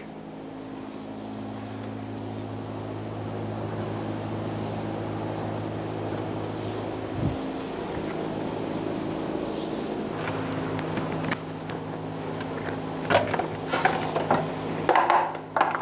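A steady mechanical hum with several low pitches held together, a brief low thump about seven seconds in, and a few clicks and knocks of parts being handled near the end.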